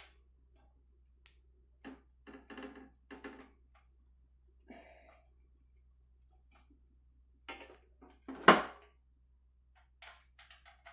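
Scattered clicks and knocks of a hex Allen key and a metal panel being handled while the screws holding an e-bike's front battery panel are undone. One loud clank comes about eight and a half seconds in.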